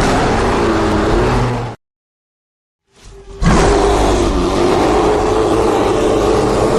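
Cinematic bear roar sound effects: a roar of under two seconds, then after about a second of silence a longer roar held on a steady low pitch.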